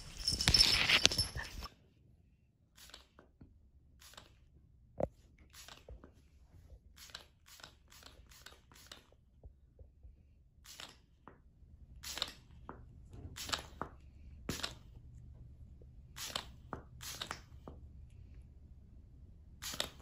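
Cat pouncing on and scuffling with a plastic toy on a wooden floor: a brief burst of scraping, scrabbling and thumps that stops about two seconds in. After that the room is quiet, with scattered faint clicks and taps.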